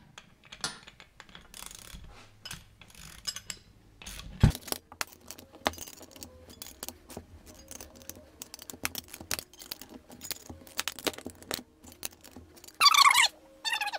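Steel wrench clicking and clinking as it is worked on the bolts of a bearing separator and puller to draw a stuck, torch-heated bearing race off a differential shaft. The clicks come irregularly, with one sharper metallic knock about four and a half seconds in.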